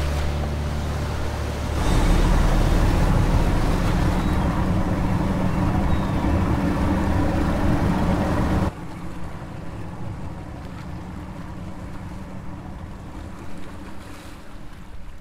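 Outdoor wind and water noise on the microphone, with a loud rumble for several seconds that cuts off suddenly about halfway through, leaving lighter wind and water with a faint low hum.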